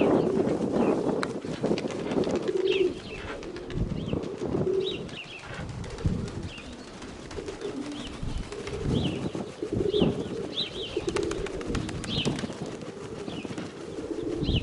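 Domestic pigeons cooing again and again, with short high chirps of small birds over them. Wind buffets the microphone in the first couple of seconds.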